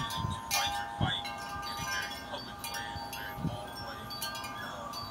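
Chimes ringing, several long tones at different pitches overlapping.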